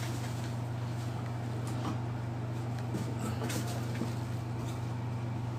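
Steady low electrical or air-conditioning hum, with a few faint soft ticks about two, three and three and a half seconds in.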